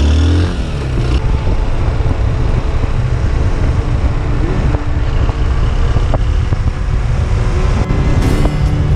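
Honda XRE 190 single-cylinder motorcycle engine running at a steady cruise, mixed with rough wind noise on the handlebar camera's microphone.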